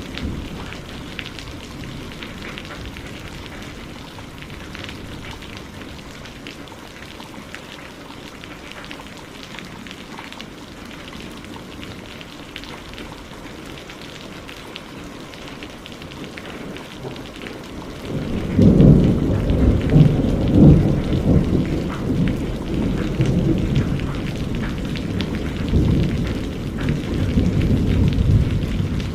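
Rain falling steadily, with fine pattering. About two-thirds of the way through, a long, loud, low rumble of thunder rolls in and swells several times.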